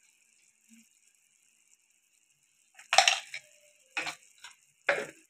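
A small steel spoon clinking against a utensil: three or four short, sharp clinks about a second apart in the second half, after near silence.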